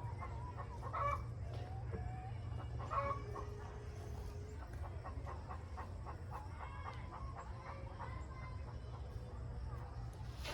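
A flock of chickens clucking, with many short calls overlapping, the loudest about one and three seconds in, over a steady low rumble.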